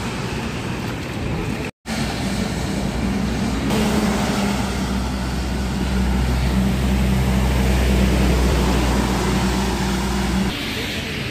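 Heavy trucks passing on a rain-soaked highway: the steady low drone of a diesel engine over the hiss of tyres throwing up spray from the wet road. It follows a brief cut-out about two seconds in, grows loudest in the middle and drops away sharply near the end.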